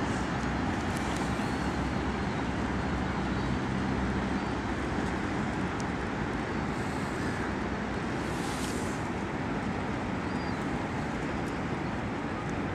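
Steady low engine rumble under a constant wash of noise, like a motor running at an even speed.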